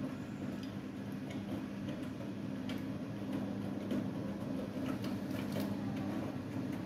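Siemens iQ700 front-loading washing machine running in its final spin, a steady hum with light clicks scattered through it.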